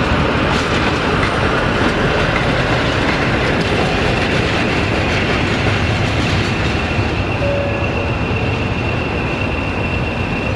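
BR Class 47 and DRS Class 20 diesel locomotives running, a loud steady engine noise, with wheel clicks over rail joints in the first second. A thin steady high whine grows stronger about six seconds in.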